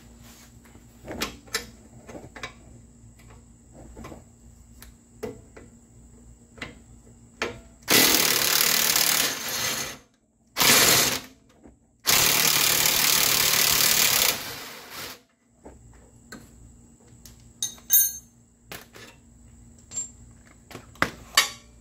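Cordless impact wrench hammering on a front-axle suspension bolt to break it loose, in three bursts, the last and longest about two seconds before the tool spins down. Light metallic clinks of tools and parts before and after.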